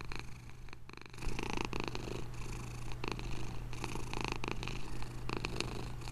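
A domestic cat purring steadily.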